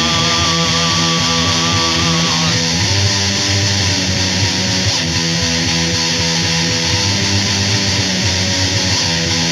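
Instrumental passage of a rock song: distorted electric guitar and bass guitar playing without vocals.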